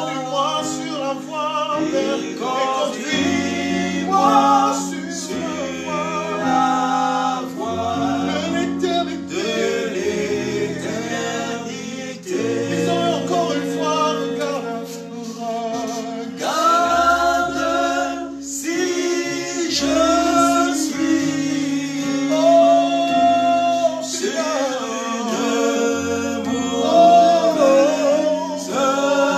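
Gospel worship song sung by a small group of men and women together, over instrumental accompaniment that holds low bass notes.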